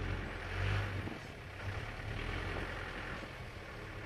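Safari vehicle's engine idling, a steady low hum, with a hiss over it that swells slightly just under a second in.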